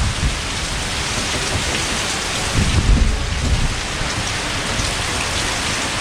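Heavy tropical-storm rain falling steadily, with a low rumble that swells about halfway through.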